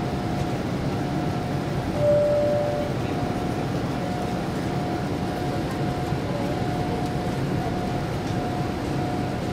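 Steady cabin noise of a Boeing 787 in its climb after take-off: a low engine and airflow rumble with a faint steady whine. A short single tone sounds about two seconds in.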